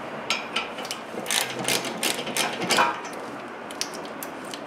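Hand ratchet clicking in quick runs as a caliper mounting bracket bolt is turned out, then a few scattered clicks near the end.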